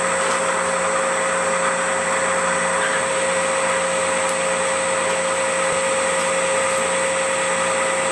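Large CNC lathe turning a 50 mm mild steel bar while the tool takes a surface cut: a steady machining noise with a constant whine over it. The tool is set about 10 mm above the centre line, so it digs into the stock and the cut runs too hot.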